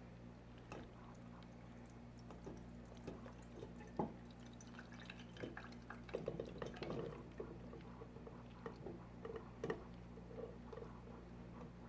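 Quiet kitchen sounds of liquid dripping and being poured, with scattered small clicks, a sharper tap about four seconds in and a busier patch of handling sounds about six seconds in, over a steady low electrical hum.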